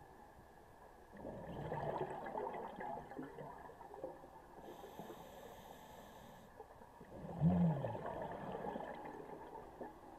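Scuba diver breathing through a regulator underwater. Two long exhalations of bubbling, one about a second in and one about seven seconds in, with a fainter inhalation hiss between them. The second exhalation opens with a short low tone.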